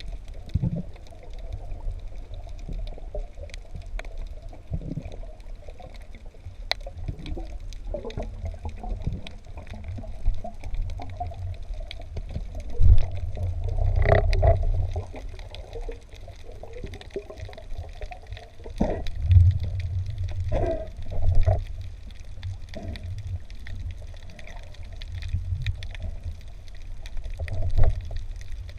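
Underwater sound picked up by a spearfisher's camera: a steady low water rumble and swishing against the housing, with scattered sharp clicks and knocks and louder swells of water movement about halfway through and again about two-thirds of the way in.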